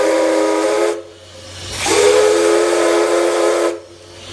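C11 207 steam locomotive's steam whistle blowing. One blast ends about a second in, then a second long blast starts a little under two seconds in and lasts about two seconds. Each blast sounds several steady tones together over a loud hiss of steam.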